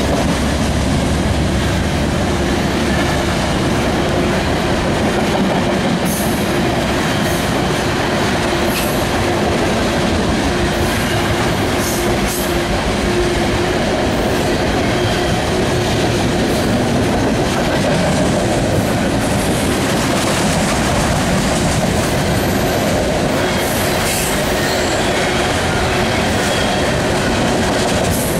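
A CSX freight train passing close by. The deep rumble of its trailing GE ES44DC diesel locomotive fades over the first few seconds, then the steady rumble and wheel clatter of freight cars rolling past, with scattered sharp metallic clicks.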